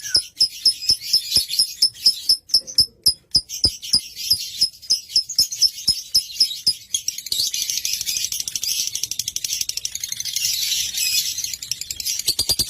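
Lovebird singing: sharp chirps repeated several times a second, then, about halfway through, a long continuous rapid chattering trill that breaks back into separate quick notes near the end.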